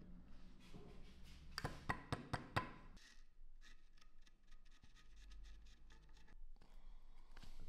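Hand tools working on a wooden rifle stock: a few sharp knocks about two seconds in, then a quick run of fine ticks for about three seconds, then more taps near the end.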